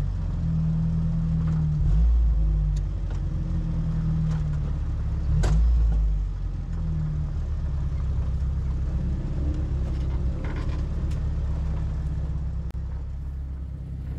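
4x4 vehicle's engine running with a low rumble that swells and eases as the throttle changes, with a few sharp knocks, the loudest about five and a half seconds in.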